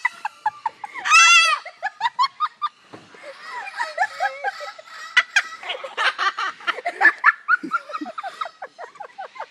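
Umbrella cockatoo imitating human laughter in quick repeated "ha-ha" pulses, mixed with people laughing. About a second in, one loud wavering call cuts through.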